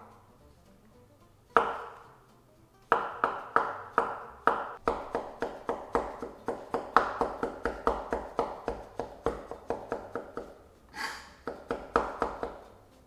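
Knife chopping mushroom stems on a cutting board: one knock, then a run of quick, evenly spaced chops at about four to five a second, each with a short ring. A short noisy swish sounds near the end.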